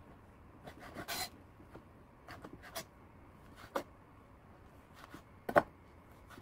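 Chef's knife slicing through blanched squid and knocking on a wooden cutting board: a handful of scattered taps and light scrapes, the loudest about five and a half seconds in.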